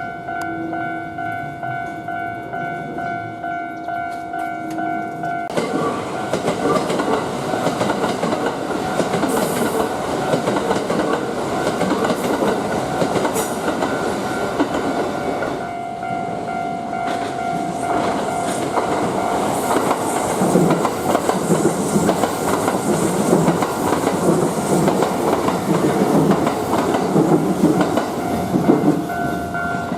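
Japanese level-crossing warning bell ringing, then about five seconds in a Kintetsu electric train passes the crossing: loud rushing rail noise and a regular clatter of wheels over the rail joints, strongest in the second half. The bell rings on under the train and is plain again at the very end.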